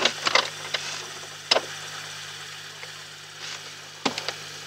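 Sharp metallic clicks from the glider's nose tow hook and its release being checked: a quick cluster at the start, a single click about a second and a half in, and three more near the end. Under them runs a steady low engine hum.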